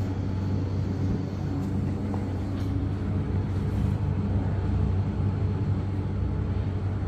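Steady low hum and rumble of the Canton Tower bubble tram capsule in motion, heard from inside the cabin.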